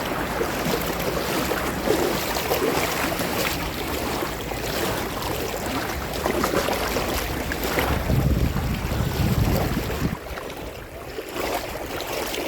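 Sea water washing and lapping in the shallows, a steady surf noise. Wind is on the microphone, swelling to a stronger low gust about eight seconds in before easing.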